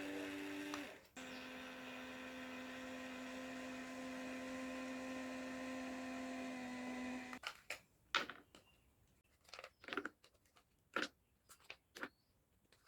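Small battery-powered DC fan motors of a homemade cardboard air conditioner running with a steady hum. The hum cuts out briefly about a second in, comes back at a slightly lower pitch, and stops abruptly after about seven seconds. A series of light clicks and taps follows.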